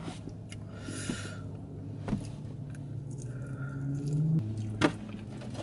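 Someone eating a chicken wing: a couple of sharp crunches of biting, about two seconds in and again near the end, the later one the loudest, with quieter mouth and handling noises over a steady low hum.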